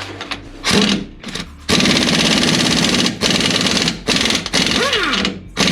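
Impact wrench hammering in rapid bursts on a bolt of a truck's rear suspension, working to break the bolt loose. After a short opening burst it runs near-continuously, with a few brief pauses between trigger pulls.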